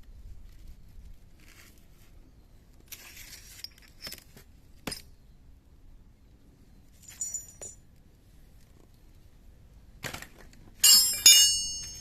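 Metal tools and parts clinking and tapping during scooter gearbox work. Near the end comes a loud metallic clatter that rings on briefly.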